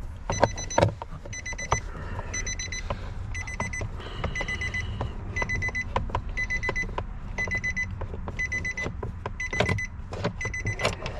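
Nissan Frontier's cabin warning chime beeping about once a second, each beep a fast trill, while sharp clicks and knocks come from a screwdriver working the screws of the headlight switch panel under the dash.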